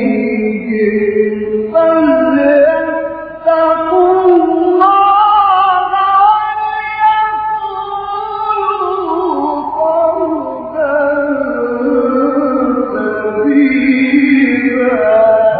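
A man reciting the Quran in a melodic, drawn-out style, holding long ornamented phrases with his pitch slowly climbing and falling.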